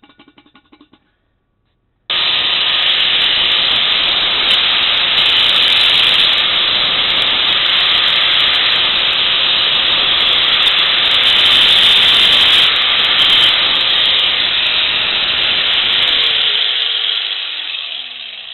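Grinder grinding down an old broken weld around a metal chair-pedestal shaft. It starts abruptly about two seconds in and runs steadily with a constant whine, then lets off near the end and spins down with a falling pitch.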